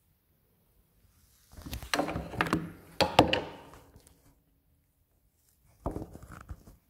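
Keys of an old upright piano being pressed: two clusters of dull wooden knocks and clunks, with a faint note ringing on for a couple of seconds after the loudest one.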